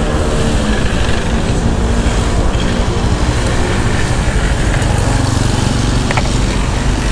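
Motor scooter engine running at low speed, with a steady low rumble of wind and road noise on the bike-mounted microphone, as the scooter slows and stops in street traffic.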